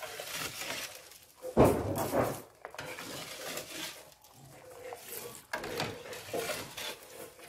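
Metal spoon and wire-mesh strainer scraping and clinking against a metal stockpot while boiled freshwater clams are scooped out, the shells rattling in the mesh. The sounds come irregularly, with one louder clatter about one and a half seconds in.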